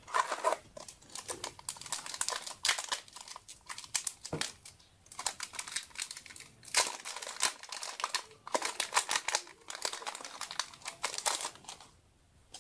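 Foil wrapper of a Yu-Gi-Oh! booster pack crinkling as it is handled and opened, in repeated bursts of crackling that stop about half a second before the end.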